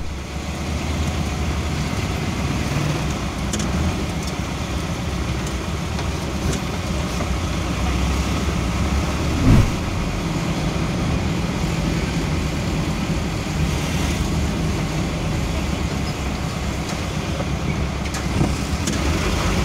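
Steady engine and road noise from a vehicle driving down a street, a continuous low hum with surrounding traffic. A short loud thump about halfway through.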